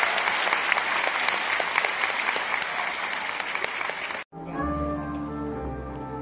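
Audience applauding in a concert hall. About four seconds in, the sound cuts off abruptly and piano music with a sustained low accompaniment begins.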